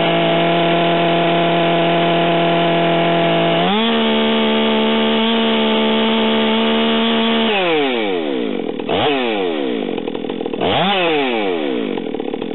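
Stihl MS 462 chainsaw engine held at full throttle while its electronic controller resets. It runs steadily, then about four seconds in it cleans out and jumps to a higher steady pitch, 'coming up on the high idle': the sign that the controller has finished calibrating. A few seconds later the revs fall away, rising and falling twice more before the end.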